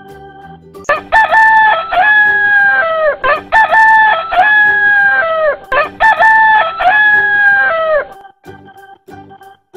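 A rooster crowing three times in a row, each crow about two seconds long and dropping in pitch at the end.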